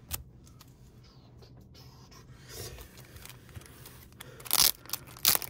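Plastic-bagged stacks of trading cards being picked up and handled on a wooden table: a faint click just after the start, light scraping and rustling from about halfway, then two loud, short crinkles of the plastic bag near the end.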